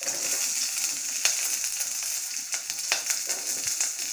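Chopped garlic and green chillies sizzling in hot coconut oil with mustard seeds in a steel pan: a steady hiss with scattered sharp pops, the two strongest about a second in and about three seconds in.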